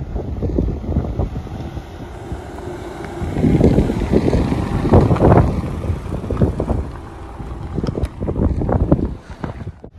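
Wind buffeting the microphone in irregular gusts, loudest a few seconds in, over a Maruti Suzuki XL6 driving slowly along a dirt track.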